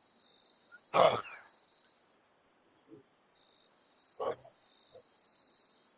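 Kangaroo giving short, harsh calls: a loud one about a second in, then fainter ones around the middle and later.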